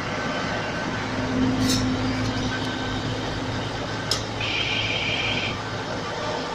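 GreenStar 95 HP combine harvester's diesel engine running steadily, louder for a couple of seconds about a second in. A sharp click about four seconds in, followed by a high steady beep lasting about a second.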